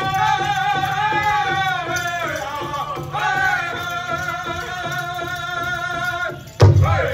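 Native American dance song: a high singing voice holds long, slightly wavering notes over a steady drumbeat, breaking off briefly partway through. A sudden loud thump comes near the end.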